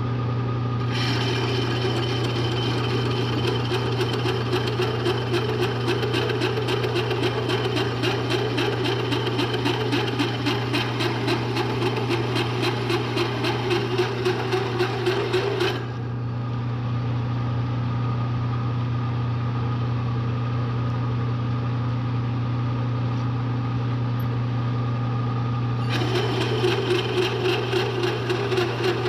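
Large bi-metal hole saw in a Bridgeport milling machine cutting steel plate: a rapid, rhythmic chatter of the teeth over a steady machine hum. The cutting starts about a second in, stops for about ten seconds around the middle with only the hum left, then resumes near the end.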